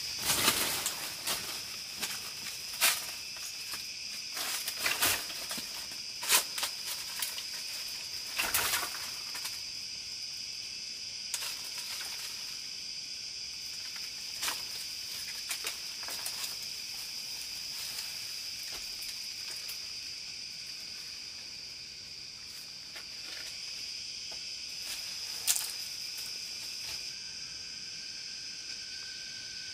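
Steady high-pitched insect drone, with scattered crackling rustles and knocks, most of them in the first nine seconds and one more at about 25 seconds.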